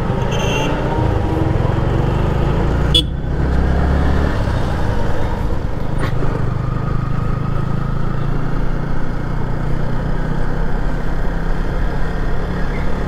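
Yamaha sport motorcycle's engine running steadily at low road speed, with tyre and wind noise on the rider's camera. A short horn toot sounds near the start, and a sharp click about three seconds in.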